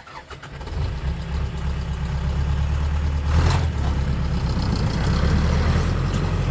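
A motor vehicle's engine running steadily, growing louder over the first second, with a short rushing noise about three and a half seconds in.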